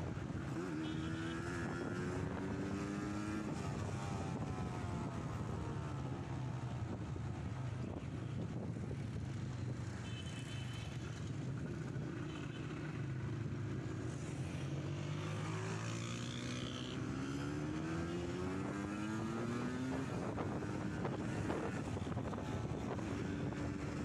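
Kawasaki GTO 125 two-stroke single-cylinder engine under way on the road, revs climbing about a second in, easing off, then climbing again in a long pull through the second half.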